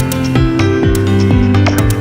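Electronic music with a steady beat and held synthesizer notes.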